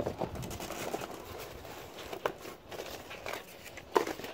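Hands rummaging in a cardboard box, shifting its flaps and the packed items inside: scattered rustles and light knocks, with a sharper knock near the end.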